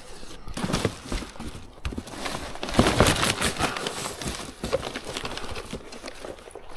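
Rummaging through a cardboard box with a reach grabber: irregular clicks, knocks and scrapes as the grabber jaws and the box's contents hit each other, with cardboard and packaging rustling.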